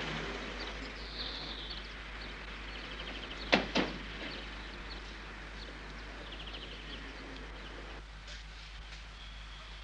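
Birds chirping faintly over a steady background hiss, with two sharp knocks in quick succession about three and a half seconds in.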